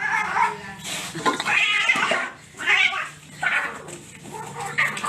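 Cats yowling at each other in a string of loud calls, roughly one a second.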